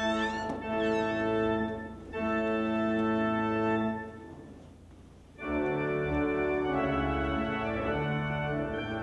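Organ playing slow, sustained chords. The chord fades away a little past four seconds, and a new chord comes in about a second later.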